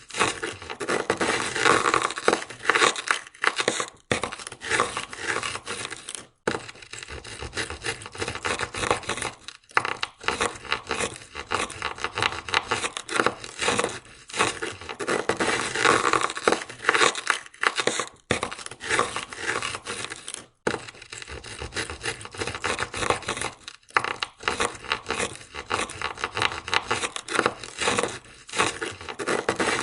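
Ice scraper scraping ice off a car window in rapid strokes, a dense crunching rasp broken by brief pauses every few seconds.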